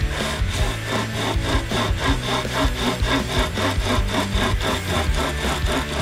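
Hand chainsaw, a chain pulled back and forth by its two straps, cutting through a fresh poplar pole in a fast, even rhythm of rasping strokes.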